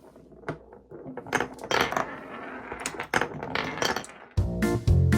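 Glass marbles rolling and clattering through a wooden Cuboro Speed marble run: an irregular run of clicks and knocks. Music starts near the end.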